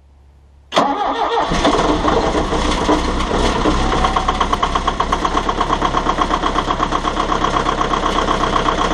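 Volvo EC140 excavator's diesel engine starting up under a second in, catching at once, then idling with an even pulsing beat.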